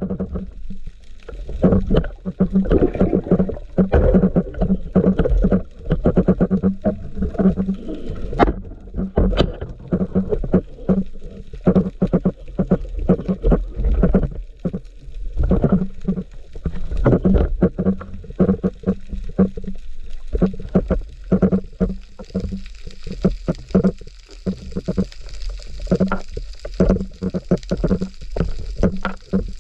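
Muffled underwater sound picked up by a camera in a waterproof housing. Water rushes and there are dense, irregular knocks and rumbles as a spearfisher moves and handles a wooden speargun and a speared gilthead sea bream, with a low hum that comes and goes.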